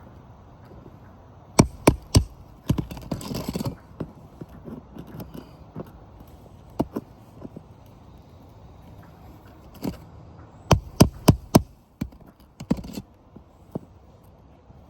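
Sharp metal taps and knocks from thin roofing tools worked under asphalt shingles to get the old nails out, with a short scrape. Three quick strikes come about a second and a half in, then a faster run of four near the end.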